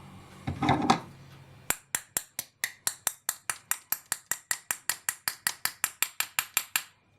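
Rapid light tapping of a small hammer on a metal drift, about six even strikes a second for roughly five seconds, driving a ball bearing back into the housing of a TBS Discovery 750 kV brushless motor until it seats.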